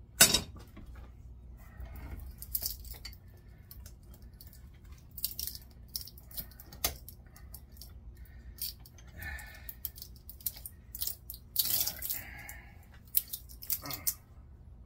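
Scattered metallic clinks, knocks and scrapes of hand tools working on a scrap electric motor being stripped for its copper, with a sharp knock just after the start.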